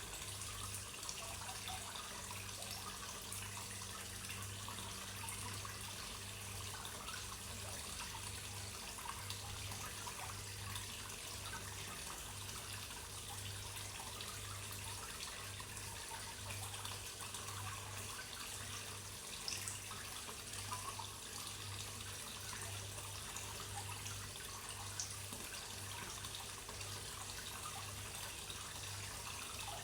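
Steady trickle of water running into a koi pond, over a low hum that pulses at an even rate.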